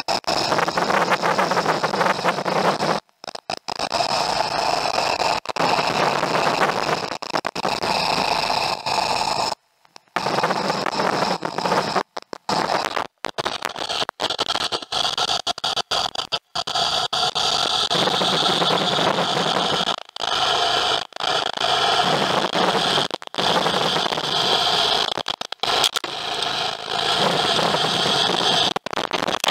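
Suction gold dredge running, heard underwater: a dense, steady noise of the motor and pump with gravel rattling into the suction nozzle, muffled by the water. It cuts out for a moment many times.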